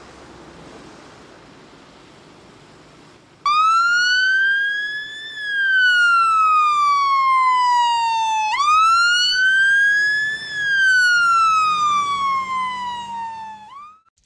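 Fire engine siren wailing, starting suddenly about three and a half seconds in after a faint steady rumble. Each wail rises quickly in pitch, then falls more slowly. There are two full wails, and it cuts off as a third begins to rise.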